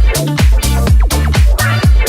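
Electronic dance music in a disco-house style: a steady kick drum about two beats a second over a bass line that steps between notes, with bright hi-hat and synth on top.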